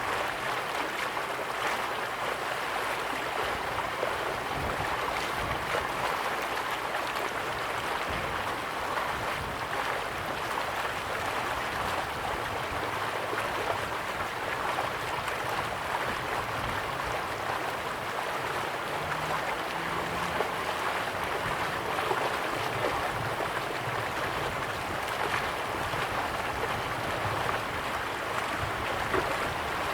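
Running water rushing steadily, like a stream or small falls, with no breaks.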